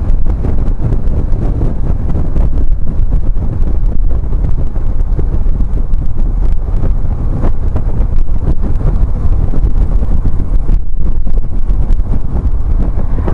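Steady wind rumble buffeting the microphone of a BMW R1150GS motorcycle under way, with its boxer-twin engine running underneath.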